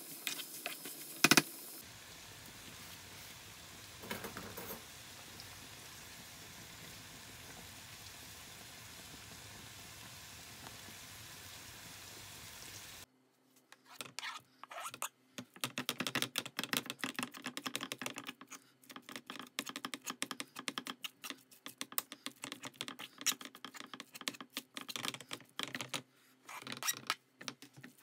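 Chicken mince and green peppers sizzling steadily in a frying pan, with one sharp knock about a second in. The sizzle cuts off near the middle and is followed by irregular clicking and scraping of a fork mashing potato pieces against the pan.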